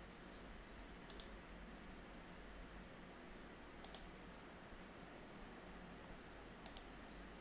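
Three quick double clicks of a computer mouse, about three seconds apart, over a faint steady room hum.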